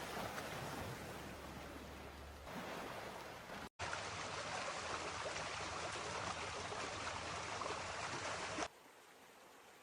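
Steady rushing of floodwater. The sound cuts out briefly about four seconds in, returns a little louder, and near the end drops to a faint hiss.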